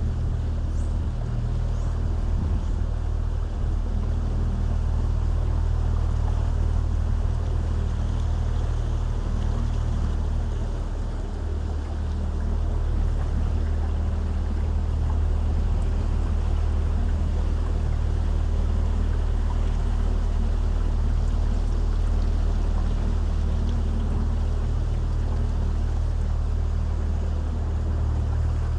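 A small boat's motor running steadily, a constant low drone with water and hull noise over it. It eases off briefly about eleven seconds in, then picks up again.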